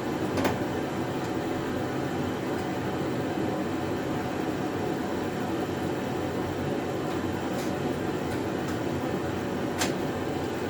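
A steady background hum, with a few sharp light clicks of small metal parts being handled as a washer and E-clip are fitted onto a cart wheel's axle: one about half a second in, a fainter one later, and one near the end.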